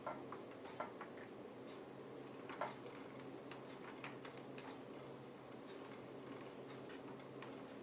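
Faint, irregular small clicks and taps of light balsa-wood model parts being handled and fitted by hand, over a steady low hum.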